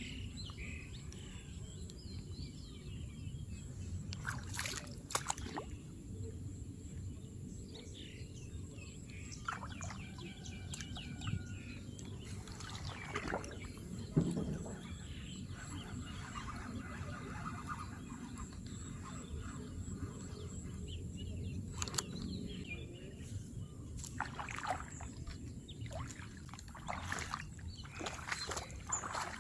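Outdoor rural ambience: a steady low rumble with scattered sharp clicks and knocks, the loudest about halfway through, and faint bird calls now and then.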